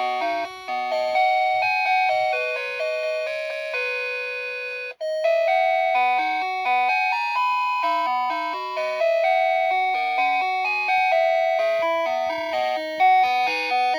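Alarm clock playing an electronic chime tune: a bright, bell-like melody of quick notes. It cuts out for an instant about five seconds in and starts again.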